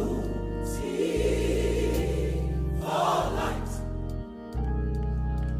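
Gospel music: a choir singing over sustained organ or synth bass chords.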